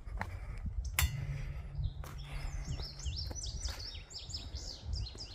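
A songbird singing a fast string of high, down-slurred notes that starts about two seconds in, over a steady low rumble, with a sharp click about a second in.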